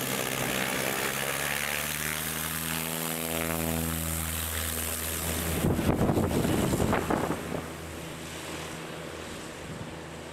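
Single-engine propeller light plane at takeoff power, rolling past and away, its engine-and-propeller drone dropping in pitch as it goes. Gusts of wind on the microphone come in about six to seven seconds in, after which the engine is fainter.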